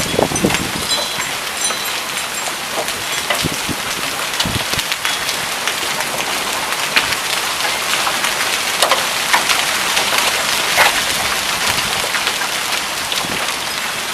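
Heavy rain mixed with penny-sized hail pelting down: a dense, steady hiss dotted with many sharp clicks of hailstones striking.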